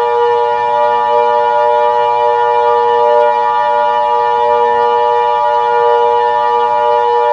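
Emergency Alert System attention signal: a loud, steady two-tone alarm held without change, over a lower steady droning tone.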